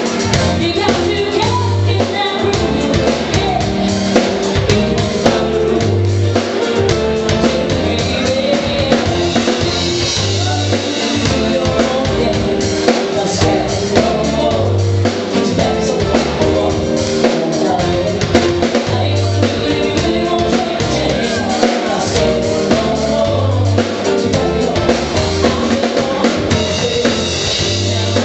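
Live band playing a song: a singer over drum kit and bass, with a low bass figure that comes round about every two seconds.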